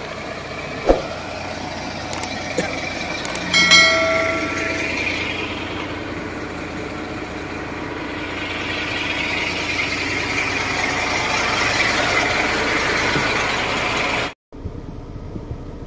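Truck engine running steadily, with a brief loud tone about three and a half seconds in. From about eight seconds a rising rush of vehicle noise builds, then cuts off suddenly near the end.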